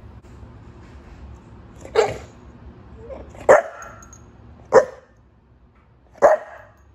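English Bulldog puppy barking four times, short single barks about a second and a half apart.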